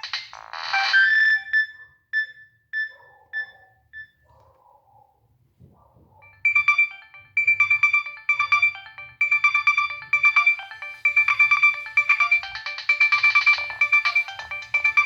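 Polyphonic ringtones from a Nokia 6585i phone. One tune ends with a few fading repeated notes, and after a short pause another starts about six seconds in: a fast run of notes over a steady repeated high note.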